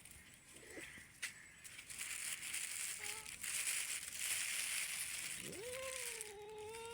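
A few seconds of crunching and rustling noise, then a cat's long meow starting near the end.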